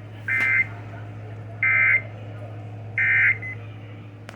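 Emergency Alert System end-of-message signal: three short, identical bursts of warbling two-tone data (the SAME "NNNN" code) about a second apart, marking the end of a warning broadcast.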